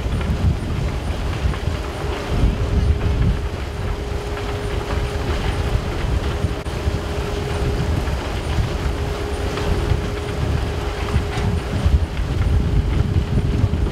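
Machinery at a construction-waste recycling plant running: a steady low rumble with a constant hum over it, and a few faint knocks.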